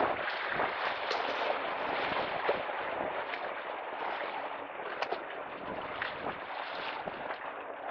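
Steady rush of wind and choppy lake water splashing against the shore, with a few faint short splashes.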